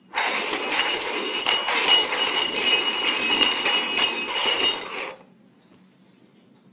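Cups being shuffled around on a tabletop: a continuous scraping rattle full of clinks with a thin ringing note, lasting about five seconds and stopping abruptly.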